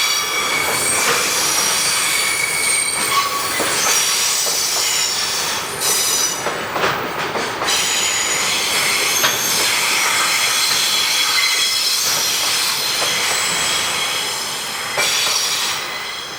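Freight train wheels squealing against the rails as the wagons pass, a shrill, shifting set of high tones with a few clicks from the wheels, fading near the end.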